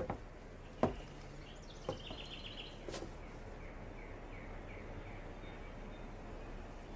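Four soft footsteps about a second apart over a quiet background, with a bird chirping in a string of short, quick, falling calls.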